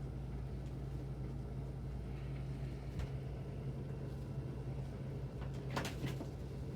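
Steady low hum, with two brief sharp rustling noises close together near the end.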